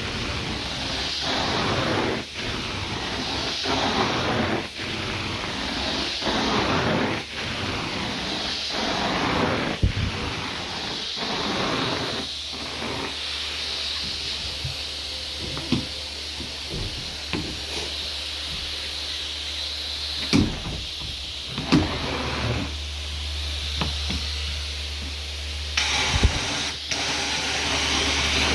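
Hot-water carpet extraction wand spraying and sucking in repeated strokes, a surging hiss every two to three seconds. About halfway through the strokes stop, leaving a steady low hum with a few clicks, and the hiss returns near the end.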